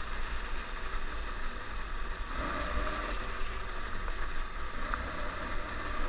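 Snowmobile engine running at a steady pace while riding along a groomed track: a steady low rumble with a hiss over it.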